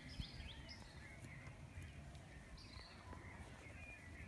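Faint bird chirps and calls, short and falling in pitch, scattered throughout over a low rumble of wind.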